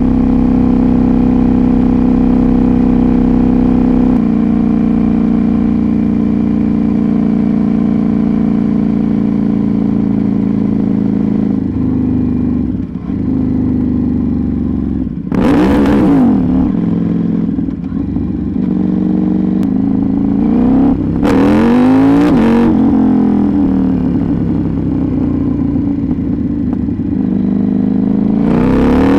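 KTM 790 Duke's parallel-twin engine running through an Arrow GP2 exhaust with the catalytic converter removed. It runs steadily at first, then revs up and back down three times: about halfway through, about three quarters through, and once more near the end.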